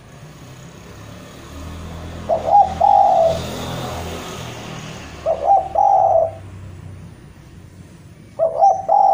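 Spotted dove cooing three times, about three seconds apart, each phrase a short note run into a longer coo: its call to a rival.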